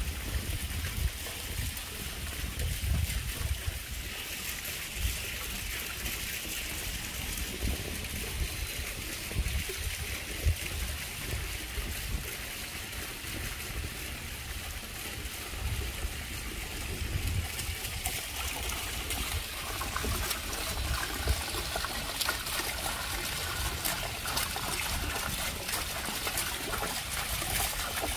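Running water trickling and splashing in a steady watery hiss, with an uneven low rumble underneath. The splashing grows brighter and busier about two-thirds of the way in.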